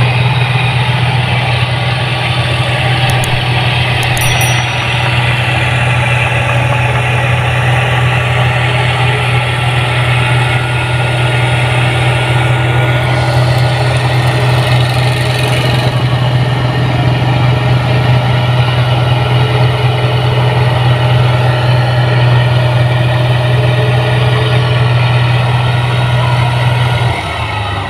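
Combine harvester's diesel engine running steadily with a deep, even hum, dropping away just before the end.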